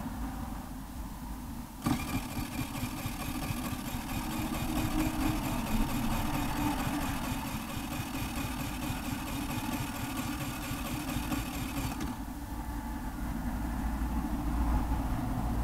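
Electric starter of a 2006 Baotian BT50QT-9D scooter (139QMB four-stroke engine) cranking with a steady whir for about ten seconds, starting abruptly about two seconds in and cutting off suddenly; it is being cranked because the engine is giving trouble.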